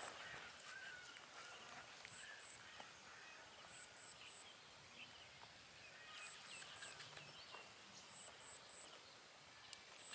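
Quiet rural outdoor ambience: a thin, high-pitched chirp repeats in quick groups of two or three about every two seconds, over a faint hiss with scattered soft bird-like chirps.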